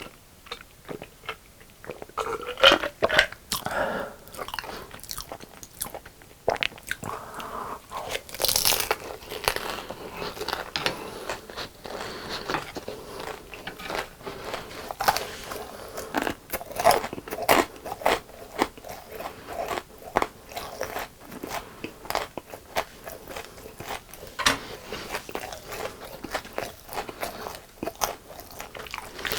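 A person biting into and chewing crispy fried chicken, with irregular crisp crunches between quieter chewing.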